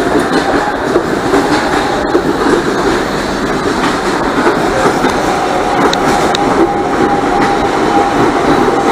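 Supervia CNR 3000-series electric train running along the platform, a steady noise of wheels on rails, with a thin steady whine coming in over the second half.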